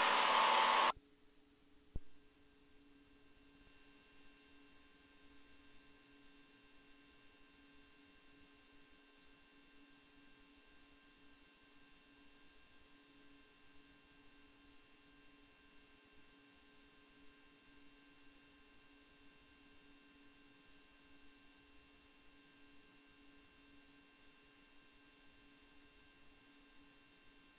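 Faint, steady electrical hum made of several constant tones over a light hiss, the noise floor of a light aircraft's radio and intercom audio feed with no one talking. A louder stretch in the first second cuts off abruptly, and there is a single click about two seconds in.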